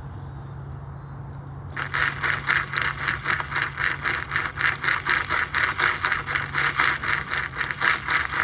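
Harsh noise music played through amplification: a low steady hum, then about two seconds in a rapid pulsing noise starts and keeps going, about five pulses a second.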